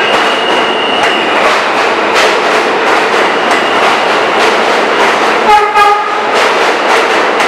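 R160A-1 subway train pulling out of an underground station and gathering speed, its wheels clicking over rail joints under a steady rumble, with a high whine that stops about a second in. About two-thirds of the way through comes a short horn blast of about half a second.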